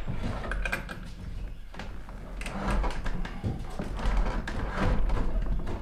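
Wooden dresser drawer being pulled open, wood scraping along its runners in several slides, with a few knocks.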